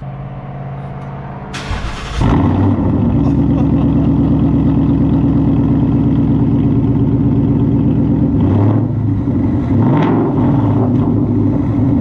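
Ford Mustang with a freshly straight-piped exhaust starting up, catching about two seconds in, then idling loud and steady with a deep exhaust note.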